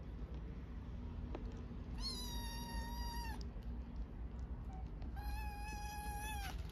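A young stray kitten meows twice, two long, high cries each held at a steady pitch for over a second, about three seconds apart: a hungry kitten begging for food.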